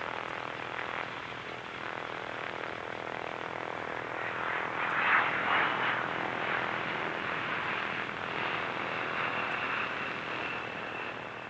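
Propeller aircraft engines running: a steady roar that swells for a moment about five seconds in.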